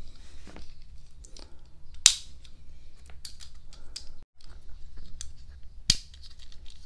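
Small plastic clicks and taps as a pink plastic armour piece is fitted onto a Majorette Tune Up die-cast Nissan Z toy car, with two louder sharp snaps, about two seconds in and about six seconds in, as the part clips into place.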